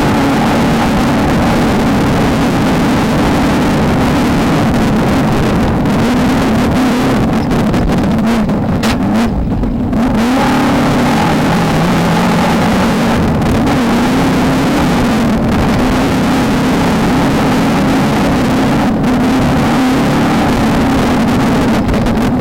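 Off-road race car engine, from a Volkswagen Beetle desert racer, running hard at high revs, its pitch rising and falling constantly with the throttle, over a steady noise of wind and rough terrain. About nine seconds in the revs drop briefly, then build again.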